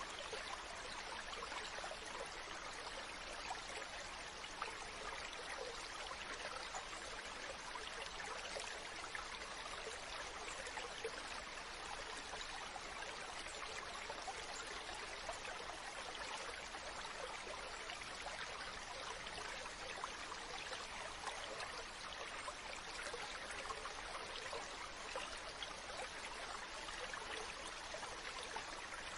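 Running water of a stream, a steady rush that never lets up.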